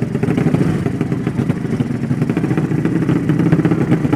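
Drag-racing motorcycle engine running with a rapid, rough, uneven beat and no clear rise in pitch.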